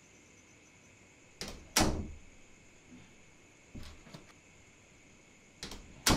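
A door handled and banged: a light latch click followed by a loud bang about two seconds in, a couple of softer clicks midway, and another click and loud bang at the end as the door is shut.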